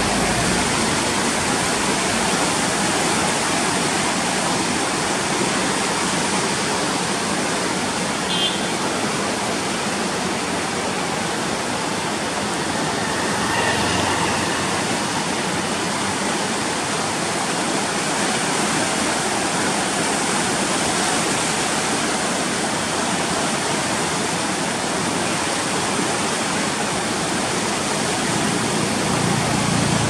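Koshi River in flood at danger level, its muddy water rushing in a steady, unbroken roar of flowing water.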